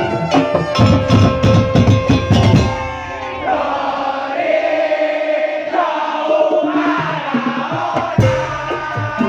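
Madurese ul-daul ensemble music: loud drumming that drops out about three seconds in, leaving a wavering melodic line, before the percussion crashes back in near the end.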